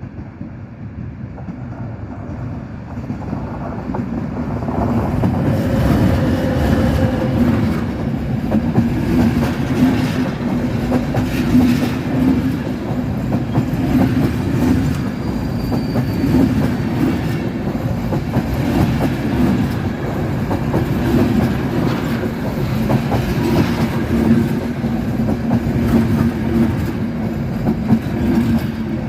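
Train hauled by a Škoda locomotive passing close by, its wheels clacking over rail joints in a steady stream of clicks. It grows louder over the first few seconds, then holds steady.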